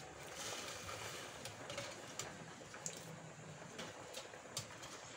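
Faint steady hiss with a few light clicks of metal tongs against the air fryer basket as a fish fillet is placed and turned.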